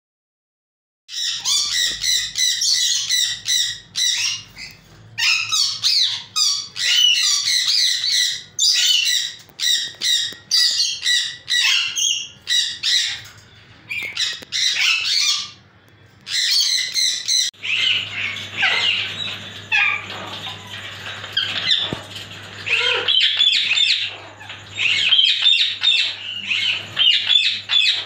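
Small caged parrots chattering and squawking in quick, shrill bursts, starting about a second in. About 17 seconds in, it changes to another flock's denser chatter over a low steady hum.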